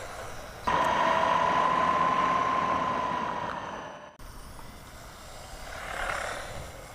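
Small brushed electric motor and gear drive of a 1/18-scale RC truggy whining over tyre noise as it drives. The sound starts suddenly about a second in and fades away over a few seconds, and a quieter pass of the same follows.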